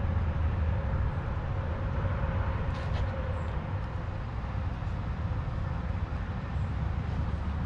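Steady low rumble of outdoor background noise, with a few faint light clicks.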